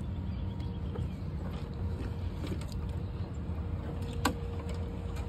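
A boat's outboard motor running steadily, a low rumble with a faint hum, and a single sharp knock about four seconds in.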